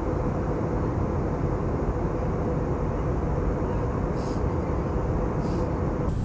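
Airliner cabin noise in flight: the steady sound of the jet engines and rushing air, with a thin steady hum running through it. Two brief faint hisses come about four and five and a half seconds in.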